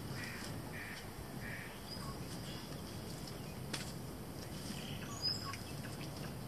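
Quiet outdoor ambience: a steady low rush of background noise, with three faint bird calls about half a second apart in the first two seconds and a light click about halfway through.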